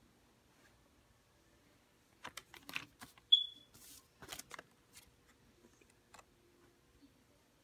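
Paper banknotes being handled: a cluster of short crackles, rustles and a brief slide as the notes are put down and picked up, with one brief high ping in the middle of it, the loudest sound.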